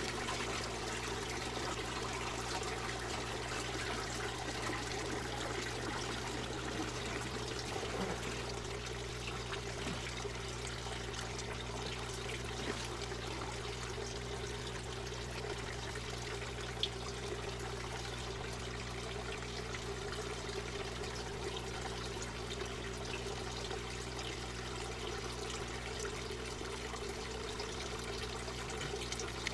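Water trickling and pouring steadily in an aquaponics system, over a constant low hum. A couple of single sharp clicks stand out, about 8 and 17 seconds in.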